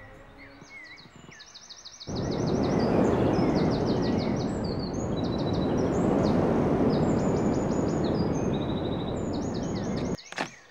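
Birds chirping, then about two seconds in a loud, steady rushing noise starts suddenly: a lightning or electrical-energy sound effect for bolts striking down on the knight. It cuts off abruptly near the end with a sharp click, and bird trills carry on above it.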